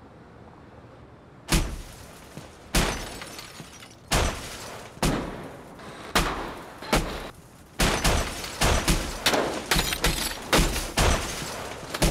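A run of heavy blows striking a car, starting about a second and a half in. They come about once a second at first, then faster, about two a second near the end.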